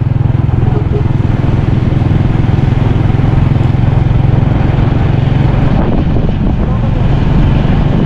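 Small motor scooter engine running steadily while being ridden, heard close up from the rider's helmet. It eases off briefly about six seconds in, then picks up again.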